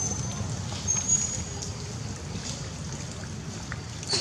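Outdoor forest ambience: a steady low rumble, with a few brief high-pitched squeaks near the start and again about a second in.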